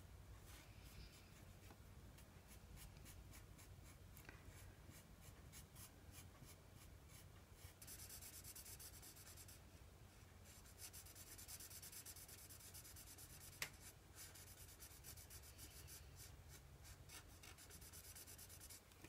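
Faint scratching of a felt-tip marker colouring on an old paper page, quick back-and-forth strokes laying down a solid base colour. A single small tick sounds about two-thirds of the way through.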